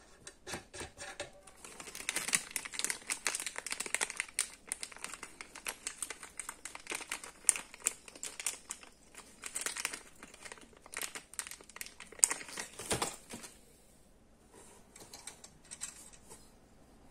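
Thin plastic bag being handled and crumpled, crinkling and rustling with many small clicks; it dies down about three-quarters of the way through, leaving a few faint taps.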